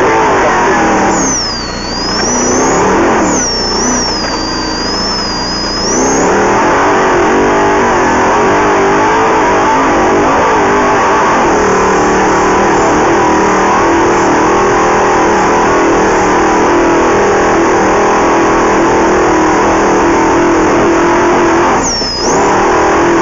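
Off-road race vehicle's engine pulling hard at high revs, heard from inside the vehicle. The throttle eases off twice in the first few seconds and once briefly near the end, with a high wavering whine showing during those lifts; otherwise the engine holds steady and loud.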